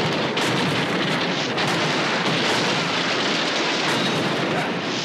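TV action sound effects of the Juggernaut's battering ram crushing KITT's black car body: a continuous, loud din of metal destruction with a few sharper hits.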